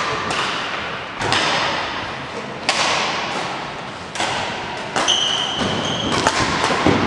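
A series of sharp knocks and thuds, about six in seven seconds, each ringing on with a long echo as in a large hall.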